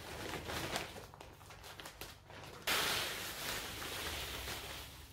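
Rustling and scraping while handling potting soil and a plastic plant pot. A louder, sustained rustle starts a little past halfway, as of a bag of soil or perlite being handled.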